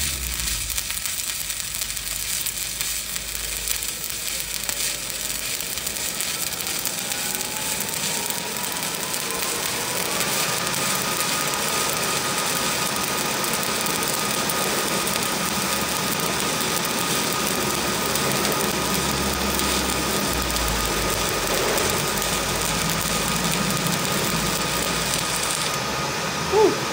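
Stick-welding arc on a 7018 rod run uphill, a steady crackling hiss that stops near the end as the arc is broken. A faint whine rises for several seconds and then holds steady under it.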